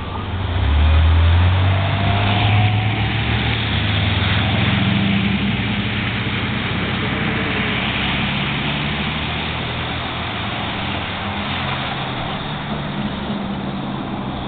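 A motor vehicle's engine running close by, loudest about a second in and then slowly fading away, over a steady hiss.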